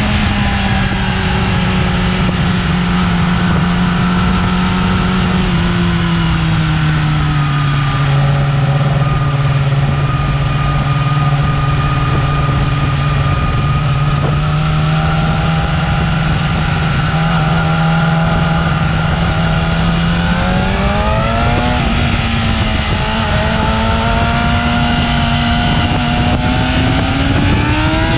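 Yamaha R6 inline-four engine on its stock exhaust, running at steady mid revs. The pitch eases down about a quarter of the way in and holds, then rises about two-thirds of the way through, dips briefly and climbs again near the end.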